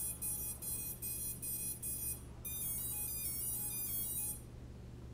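Brushless motors of a 2-inch quadcopter beeping under their BLHeli ESCs during throttle calibration. First comes a quick series of short beeps, two or three a second. About halfway through, a run of chimes stepping in pitch follows, the ESCs signalling that the throttle range has been taken.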